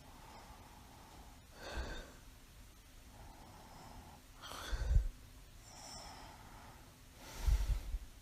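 A sleeping woman with mild sleep apnea breathing: three short, noisy inhalations about three seconds apart, each followed by a softer exhale. The last two breaths are louder and carry a low rasp.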